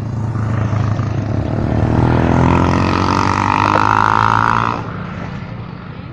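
A bus's multi-trumpet telolet horn blares for about three seconds over the rising drone of the bus engine, then cuts off sharply, leaving the engine fading away.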